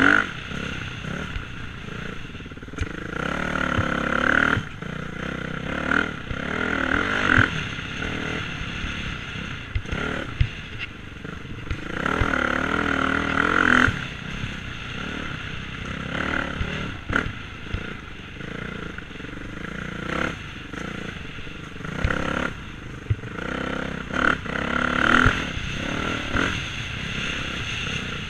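Dirt bike engine running under load on a sandy trail ride, revving up and down over and over as the throttle opens and closes, with scattered clattering knocks from the bike going over bumps.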